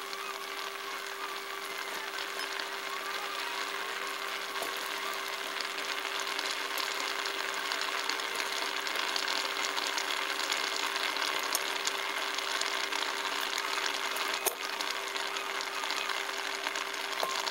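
A large pot of water at a rolling boil on the stove: a dense bubbling hiss with fine crackles that grows slightly louder, over a steady low hum.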